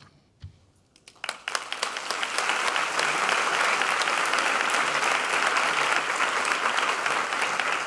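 Audience applauding: after about a second of quiet the clapping starts, builds over the next second or two and then goes on steadily.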